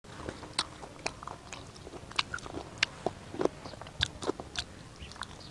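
Scattered light clicks and crackles, irregular and a few a second, from food being handled by hand at close range.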